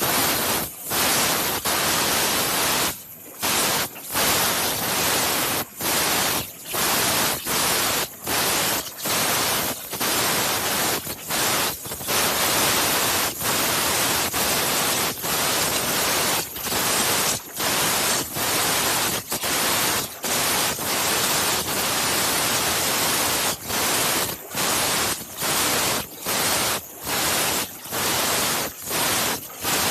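High-pressure CNC waterjet cutting head running, a loud, even hiss that drops away briefly and comes straight back many times, about once a second.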